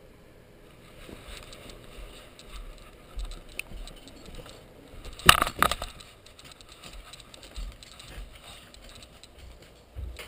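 Handling noise from a camera being moved about: rattling and clattering, with two sharp knocks close together about five seconds in.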